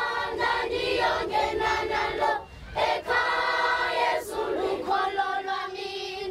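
Choir of children's voices singing, with a short break for breath about two and a half seconds in before the singing carries on.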